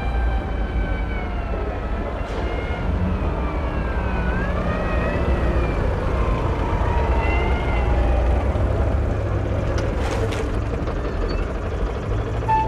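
Motor scooter engine running steadily as the scooter rides closer, a low rumble under high tones that glide up and down. A brief hiss comes about ten seconds in.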